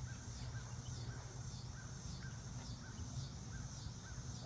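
Faint animal calls repeating evenly about twice a second, high-pitched, over a steady low hum.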